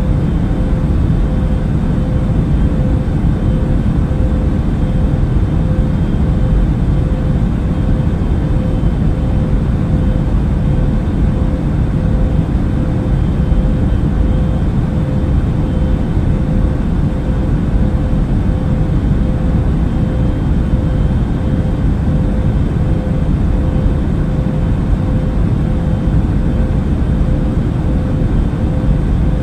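Passenger airplane cabin noise in flight: a steady, unchanging low rumble with a faint constant hum above it.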